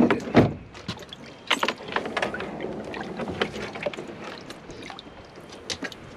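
Knocks and clicks on a small metal fishing boat: a loud knock just after the start, then a scatter of lighter clicks and clunks over a low background.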